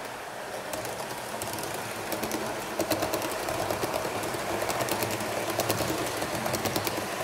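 HO scale model train, a Piko Mat '56 electric multiple unit, running on the track: wheels clicking over rail joints over a motor hum. It grows louder and busier from about three seconds in as the train passes close.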